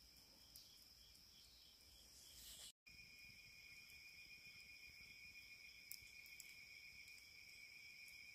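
Faint chorus of insects: several steady high-pitched trills layered together. A brief dropout about three seconds in is followed by a louder, lower trill.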